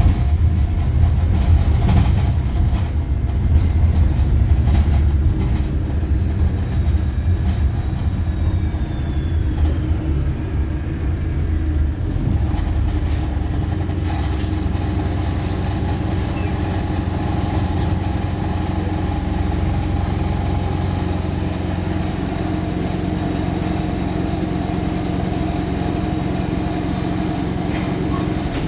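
Wright StreetLite single-deck bus heard from inside the saloon: its diesel engine runs with a low drone, louder and more uneven for the first dozen seconds, then steady. Short clicks and rattles from the body come a few times early on.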